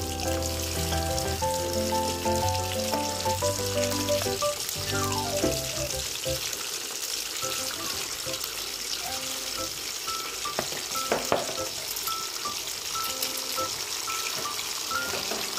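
Whole catfish deep-frying in hot oil in a wok: a steady sizzle. Metal tongs turning the fish clink against the wok a few times about ten to eleven seconds in, and background music plays over the sizzle, fuller in the first half.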